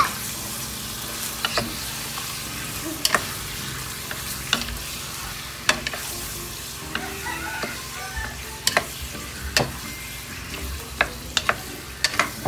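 Chicken pieces sizzling as they are sautéed in a nonstick pot, stirred with a wooden spoon that knocks against the pot sharply at irregular moments every second or two.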